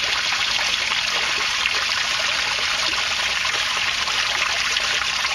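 Overflow water from an aquaponics bed trickling and splashing steadily as it runs off the edge of a board and drips back down into the tank below.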